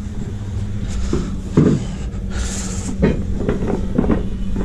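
A door being pushed open and footsteps, heard as several knocks (the loudest about a second and a half in), with a short hiss about halfway through. Under them runs a steady low hum.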